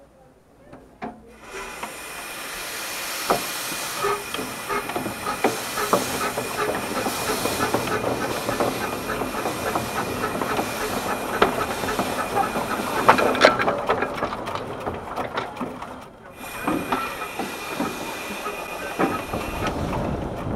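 12¼-inch-gauge steam locomotive built by the Exmoor Steam Railway hissing steam as it moves slowly off, with scattered clicks and knocks over the hiss. The hiss starts about a second and a half in, drops away briefly near the end, then comes back.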